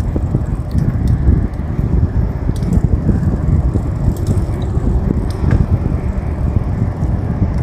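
Wind buffeting a phone microphone on a moving bicycle, over tyre and road noise, with a few faint ticks.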